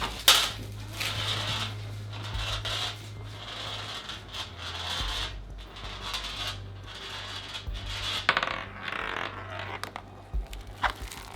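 A marble rolling along a home-made marble run, a steady rolling rattle with sharp clicks as it knocks against the track and drops between sections.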